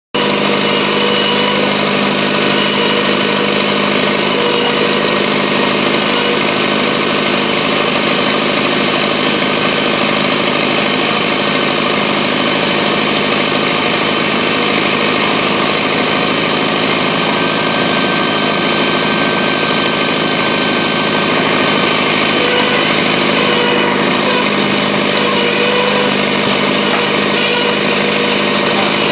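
Engine of a pile-boring rig running steadily at a constant speed, loud and unchanging.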